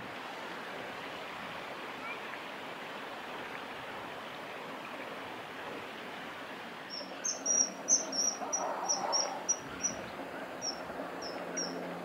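Common kingfisher calling: a quick run of about a dozen short, shrill, high-pitched notes starting about seven seconds in and thinning out toward the end, over a steady background hiss.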